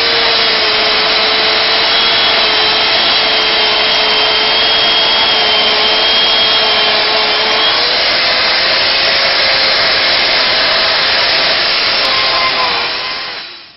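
Chainsaw running steadily while cutting wood, a loud even noise over a steady motor whine that wavers slightly in pitch; the sound stops just before the end.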